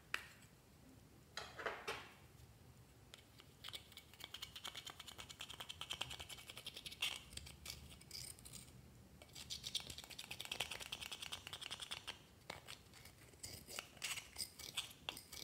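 Metal pick scraping and crumbling pressed powder blush in a plastic compact pan: dense, rapid scratching and crackling in runs of several seconds with short pauses. A couple of short clicks from the compact come near the start.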